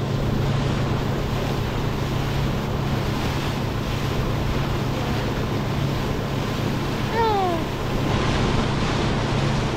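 Motorboat under way: a steady engine hum under the rush of wind on the microphone and water along the hull. A short falling tone sounds about seven seconds in.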